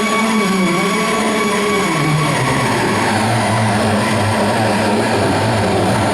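A live band's loud, distorted amplified instruments droning as one dense wall of noise. The pitch wavers at first and drops lower about two seconds in.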